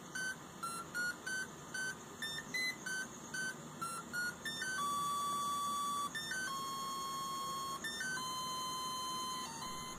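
Small yellow gearbox DC motor made to sing an RTTTL ringtone, its coil pushed back and forth at each note's frequency by an L293D H-bridge under a microcontroller's PWM: a thin, faint beeping tune. It starts as a run of quick short notes, then from about five seconds in moves to three long held lower notes.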